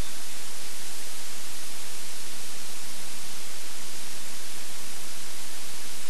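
Steady recording hiss, like tape static, with a faint low hum under it; nothing else stands out.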